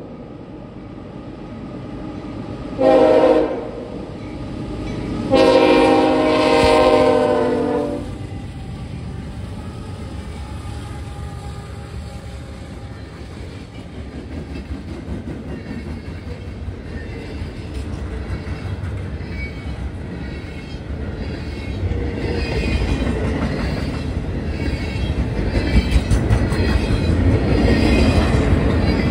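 CSX freight locomotive sounding its horn, a short blast about three seconds in and then a long blast: the closing part of the grade-crossing signal. The rumble of the train then grows steadily louder as it reaches the crossing, with wheels clicking over the rail joints near the end.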